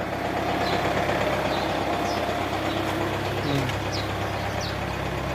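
2007 Kia Carnival engine idling steadily, now starting and running after a crank-but-no-start fault was fixed.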